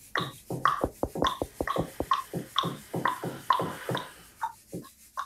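Tongue clicks imitating insects in the grass, several a second, each with a falling pitch, layered with knuckle taps and hands rubbing together for a woodpecker and rustling branches.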